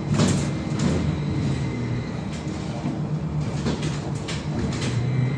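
Inside a VMZ-5298.01 trolleybus on the move: a steady low hum and road noise, with scattered knocks and rattles from the body. The loudest knock comes right at the start.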